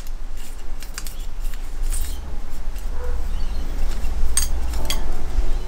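Scattered light metallic clicks and ticks as a piston ring is worked by hand over the top of a piston into its groove, over a low rumble.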